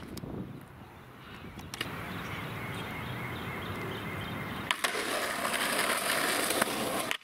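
Skateboard wheels rolling, a steady rolling noise. About two-thirds of the way in a couple of clacks sound and the rolling gets louder and hissier, then it cuts off suddenly.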